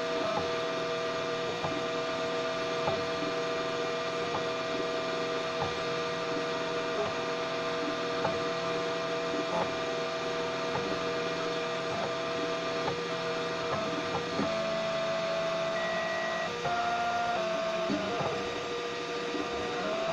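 Homemade 3D printer running a slow PLA print: the stepper motors give a steady hum of several tones, with small ticks about once a second as the print head changes direction. The tones shift and the sound gets slightly louder about two-thirds of the way through.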